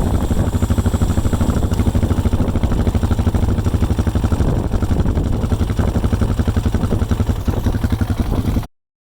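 2005 Honda Rancher 350 ATV's single-cylinder four-stroke engine idling steadily with a rapid, even exhaust pulse. It is running again after a no-start caused by corroded starter relay terminals. The sound cuts off suddenly near the end.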